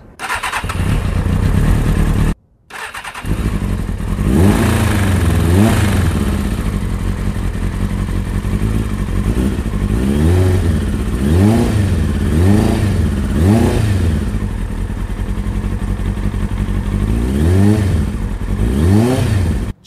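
2000 Kawasaki ZX-6R inline-four engine running on its first start after an oil and filter change: idling, with several short throttle blips that rise and fall in pitch. The sound cuts out briefly about two seconds in.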